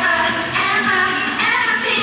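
Mandarin pop song: a group of young women singing into microphones over a pop backing track.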